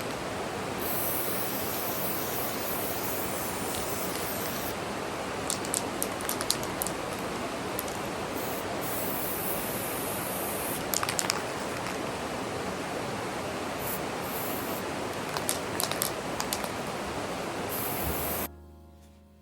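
Steady rushing of a rain-swollen stream running full and loud, with scattered sharp clicks over it. It cuts off suddenly near the end, and piano music comes in.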